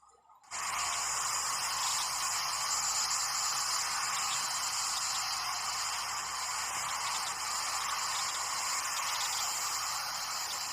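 A steady hissing noise, like static, that cuts in suddenly about half a second in and stays level throughout.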